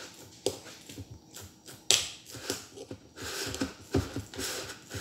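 Fingers packing fermented rice and fish (burong isda) down into a glass jar. Irregular crinkling and squishing with small knocks against the glass, the sharpest about two seconds in.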